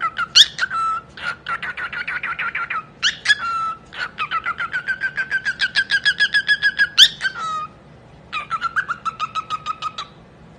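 Parrot making long runs of rapid, evenly repeated pitched calls, about eight to ten a second, broken by three sharp rising whistles, in three bursts that stop about ten seconds in.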